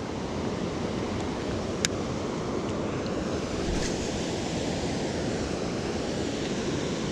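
Steady rushing of river water, with one sharp click about two seconds in.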